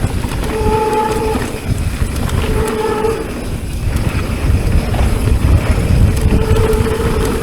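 Mountain bike brakes squealing in three short spells, a steady pitched tone, over rumble from the trail and wind on the microphone.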